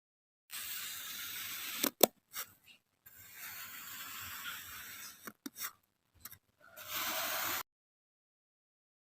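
Kinetic sand being cut and crushed: fine grainy crunching in three separate spells, with a few sharp clicks between them.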